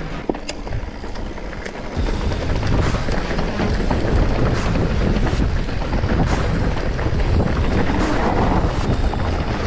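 Mountain bike riding down a dry, rough trail: wind buffeting the microphone, with tyres rolling over dirt and stones and the bike rattling. It gets louder about two seconds in as the bike picks up speed.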